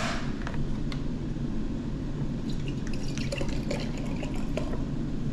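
Bowel-prep solution poured from a plastic gallon jug into a glass jar, splashing as the jar fills, over a steady low hum. A sharp click right at the start as the jug is opened.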